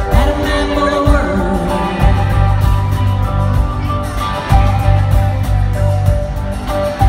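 Live rock-country band music played through an arena PA: electric guitars, drums and singing, with the bass and drums coming in heavier about two seconds in.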